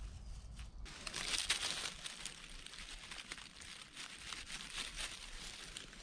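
Close rustling and crinkling of grass and dry leaf litter as hands part the stems to cut a mushroom with a knife, loudest about a second in, then softer and continuing.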